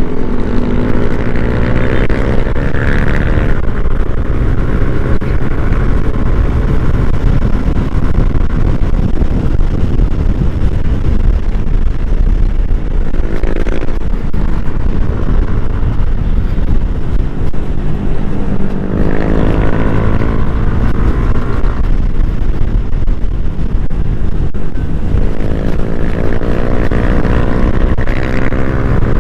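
Yamaha Nmax scooter's single-cylinder engine running on the move, under heavy wind rumble on the microphone. The engine's pitch climbs four times as it speeds up.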